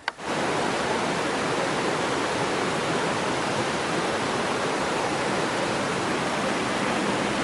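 Rushing stream water: a steady, even rush that cuts in suddenly at the start.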